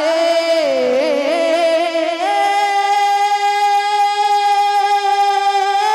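A single male voice singing a naat through a microphone: ornamented turns in the first two seconds, then one long held note from about two seconds in.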